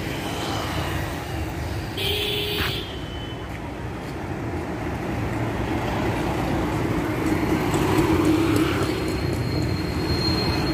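Street traffic: a steady rumble of passing vehicles that grows louder after the middle, with a short sharper sound about two seconds in.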